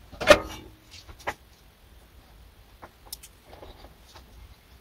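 The metal chassis and circuit board of a small mixer being handled: a loud clunk with a brief metallic ring about a quarter second in, a smaller knock about a second later, then a few faint clicks.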